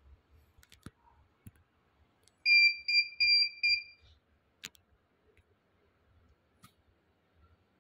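Electronic buzzer of a Dahua NVR2216-I2 network video recorder sounding a quick run of high beeps about two and a half seconds in, lasting about a second and a half, as the recorder comes up at power-on. A few light clicks and taps sound around it.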